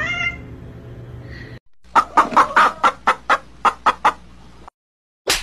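Chickens clucking: a quick run of about ten loud, sharp clucks over roughly three seconds, starting about two seconds in. Before it comes a brief rising cry over a low hum, and one short burst of sound follows near the end.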